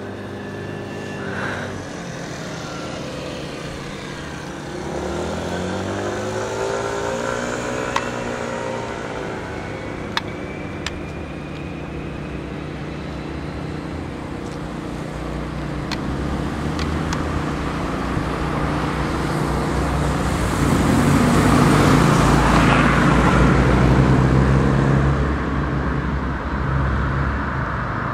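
Road traffic on a city street: cars and a motorcycle drive past one after another, their engine pitch rising and falling as they go by. The loudest pass comes about twenty seconds in, with a few light clicks before it.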